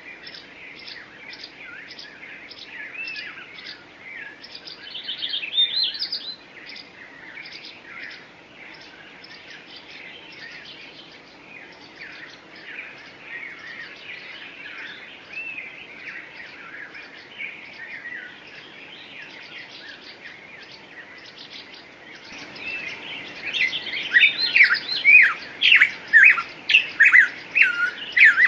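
Songbirds chirping and singing together in a dense chorus, one bird repeating a fast run of short, even notes at the start. From about two-thirds of the way in, a closer bird's louder, slurred whistling notes take over.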